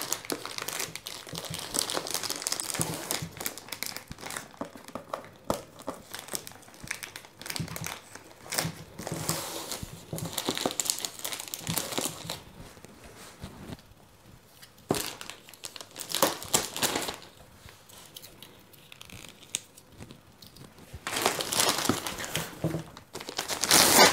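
Clear plastic film crinkling as it is pulled and peeled off a cardboard product box, in uneven bursts with short pauses, loudest near the end as the film comes free.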